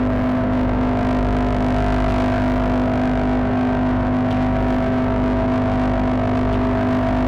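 Elektron Digitone FM synthesizer playing a sustained drone: a dense held chord of steady tones, the strongest low, over a grainy noise layer, unchanging in level.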